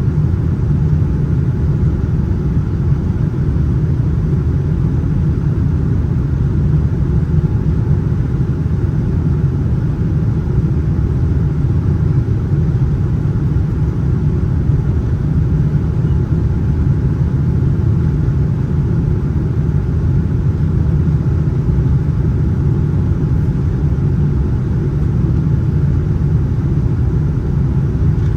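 Steady low rumble of a Boeing 787-9 passenger cabin in flight: engine and airflow noise heard from a window seat, even throughout.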